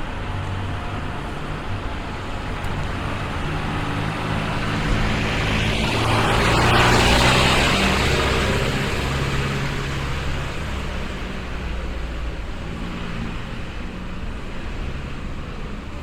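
A motor vehicle passes close by in street traffic. Its engine hum and tyre noise swell to a peak about seven seconds in, then fade away under steady low traffic rumble.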